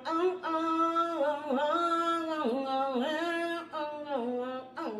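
A woman singing a slow melody with no accompaniment, holding long notes in a few phrases with brief dips between them.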